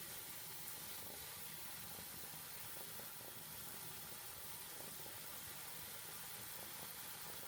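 Besan (gram-flour) batter frying in hot oil as it is piped in for mihidana: a faint, steady sizzle.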